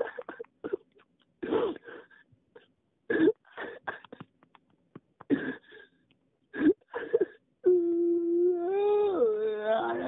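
A person's voice: several short sharp cries or grunts, then a long wailing moan starting near the end that drops in pitch partway through.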